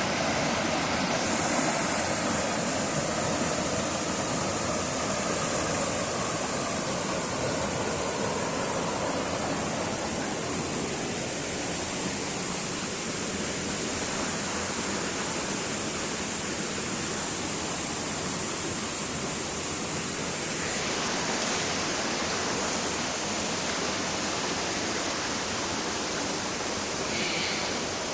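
Steady rush of flowing water, with a thin high-pitched hiss over it that stops about 21 seconds in.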